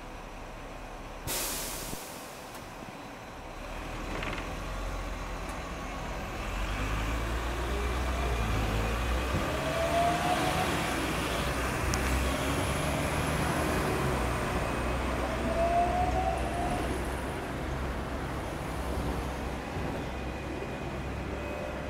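Hong Kong double-deck tram starting and running: a short sharp hiss of air about a second in, then the tram's electric traction motors whining in rising glides as it pulls away and gathers speed, several times over. A deep rumble of a double-decker bus drawing alongside swells about the middle.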